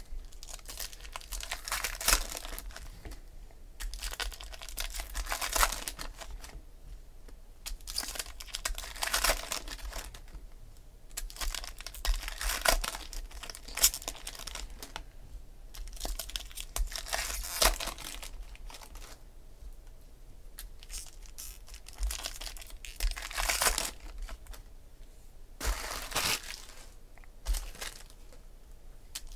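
Foil wrappers of 2011 Topps Chrome football card packs being torn open and crinkled by hand, in repeated bursts every few seconds.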